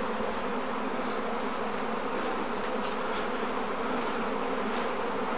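Steady, dense buzzing of a large honeybee swarm in flight, thousands of bees circling overhead. It is the sound of a swarm arriving to settle into bait hives (swarm traps).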